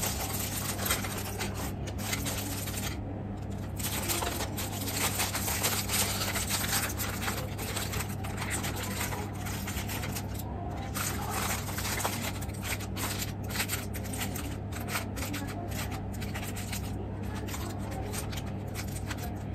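Aluminium foil crinkling and rustling as a foil-wrapped food packet is pulled open by hand, an irregular run of sharp crackles over a steady low hum.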